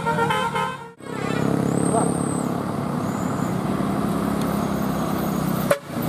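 Multi-tone Basuri telolet bus horn playing its stepping tune, which breaks off about a second in; then a bus engine running with road noise.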